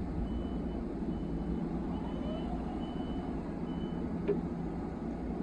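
A high electronic warning beep repeating about once a second, over the steady hum of a Long Island Rail Road electric train standing at the platform; the beeps stop about four seconds in, just before a single sharp click.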